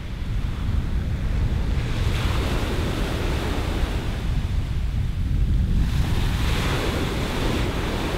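Sea waves washing onto a pebble beach. The surf hiss swells twice, about two and six seconds in, over a steady low rumble of wind on the microphone.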